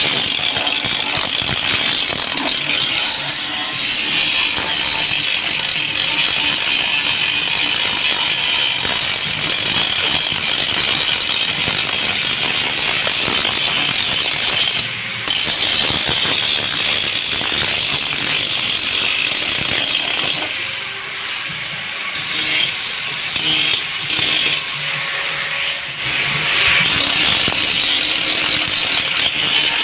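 Continuous scraping and ratcheting noise of tool work on a car being restored. It drops out briefly about halfway, then goes on and off for a few seconds before running steadily again.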